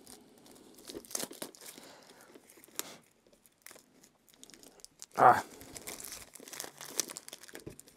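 Plastic shrink-wrap film being peeled and torn off a faux-leather Blu-ray case, crinkling and crackling in small irregular bursts. About five seconds in there is a brief vocal sound.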